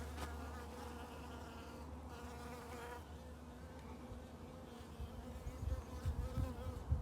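A bee buzzing steadily at one pitch, its wings whirring, typical of a bee caught in water and struggling. A low rumble sits underneath, with low bumps in the last couple of seconds.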